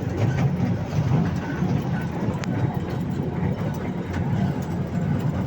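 Steady low rumble of a park toy train running along its track, heard from on board, with a single sharp click about two seconds in.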